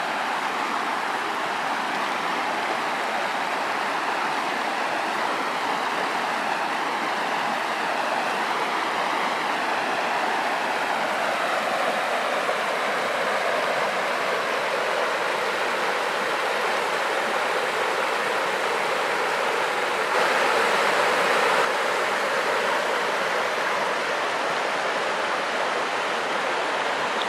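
Rushing water of a rocky mountain stream tumbling over stones and small cascades: a steady hiss, briefly louder about twenty seconds in.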